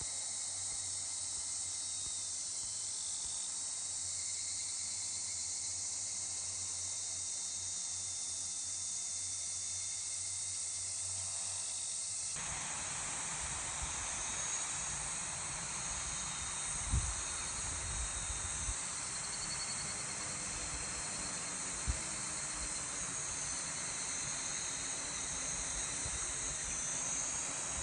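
Steady, high-pitched chorus of summer insects over the rice paddies. About twelve seconds in, the sound cuts to another take with low wind rumble on the microphone and a couple of soft thumps.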